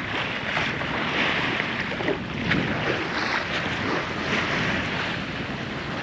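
Sailboat under way: water rushing along the hull and wake, with wind buffeting the microphone in uneven gusts.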